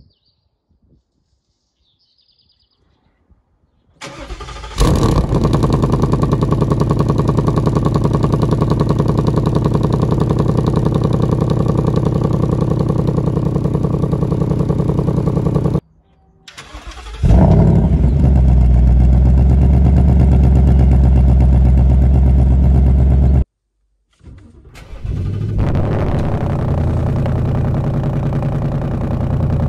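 Ford Mustang GT 5.0 V8 cold-started three times: each time the engine catches with a rev flare and settles into a steady, loud fast idle. The first two runs stop suddenly after several seconds; the third is still running at the end.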